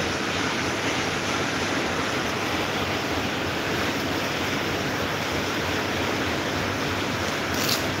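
Small plastic-bladed desk fan running, a steady rush of moving air. A brief click comes near the end.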